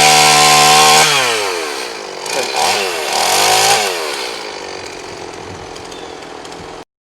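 Two-stroke chainsaw held at full throttle, then let off so the engine falls toward idle. It revs up twice more and drops back each time, and the sound cuts off suddenly near the end.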